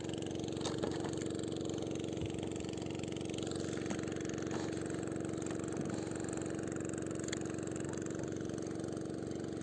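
A small engine running steadily at a constant speed, an even hum that starts abruptly and does not change.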